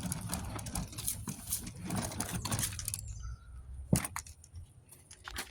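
A tool bag being carried and handled, with rustling and small clicks, then a single sharp knock about four seconds in.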